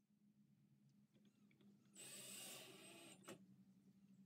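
A power drill runs briefly, for about a second starting two seconds in, driving a screw to fasten a vent cover to an ice chest lid. It is followed by a single click, and the whole is faint.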